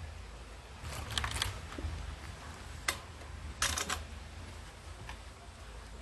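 Fired ceramic ware being handled: short clusters of light clicks and clinks as pieces knock together and are set down, about a second in, near three seconds and again around four seconds, over a low steady rumble.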